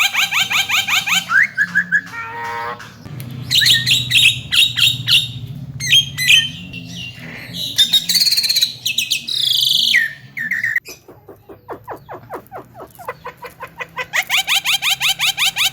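Javan myna (jalak kebo) singing a varied song: fast rattling runs of repeated notes, whistled phrases and harsh chatter, with a quick series of short falling notes near the end.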